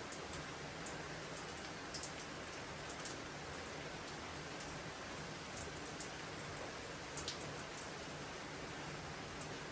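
Steady storm rain falling, with scattered louder drops ticking sharply here and there.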